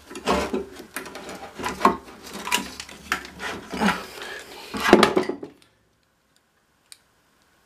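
Small metal engine parts clinking, knocking and rattling as they are worked loose and handled by hand, many quick knocks in a row; it stops about five and a half seconds in, leaving only a single faint click.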